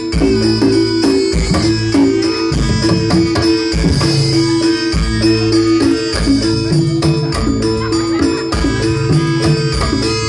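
Live campursari band playing jathilan music through loudspeakers: an electronic keyboard melody over a steady drum beat.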